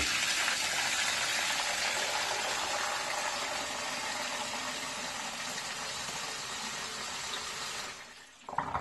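High-volume flood coolant stream from a milled aluminium nozzle gushing steadily into a plastic container as it fills. The pour cuts off suddenly about eight seconds in.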